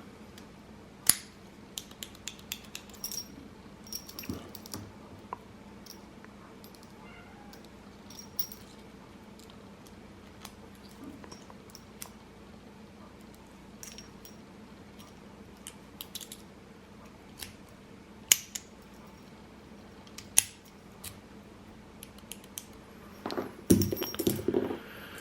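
A padlock and its key being handled: scattered small metallic clicks and light jingles, a few sharper clicks among them.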